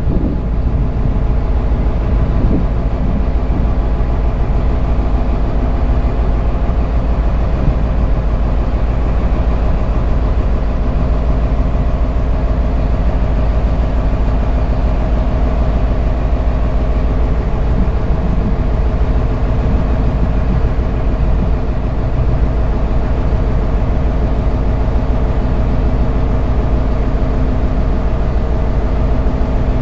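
A dhoni's engine running steadily with the boat under way, a constant hum of several steady tones over a heavy low rumble, with wind and water noise mixed in.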